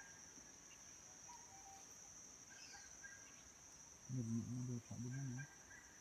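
Steady high-pitched drone of insects, typical of crickets. About four seconds in, a person's low voice sounds briefly, twice, over it.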